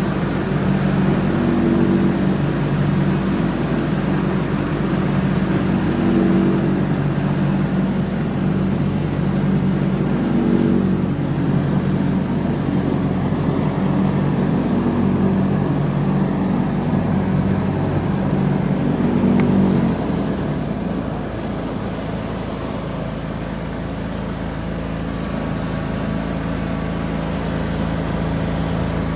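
John Deere X304 lawn tractor engine running steadily, its note wavering slightly; about two-thirds of the way through it drops in level and settles into a quieter, steadier hum.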